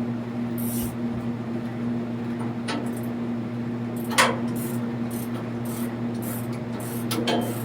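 Steady electric hum from a running shop fan, with a few sharp metallic clinks and knocks as the sawmill's band blade is tensioned.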